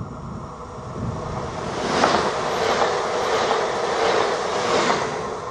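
Alstom ETR 104 'Pop' electric multiple unit passing by. The rushing wheel-and-rail noise swells, beats regularly as the wheelsets go by, then fades away near the end.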